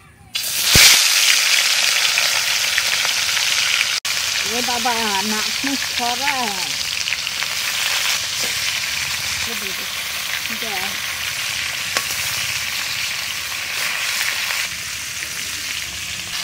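Pieces of katla fish head hitting hot oil in a metal karahi and sizzling loudly. The frying starts suddenly about half a second in and carries on steadily.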